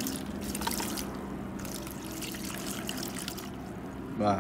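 Water trickling and splashing through a plastic colander as soaked soybeans and their soaking water are poured in and drain.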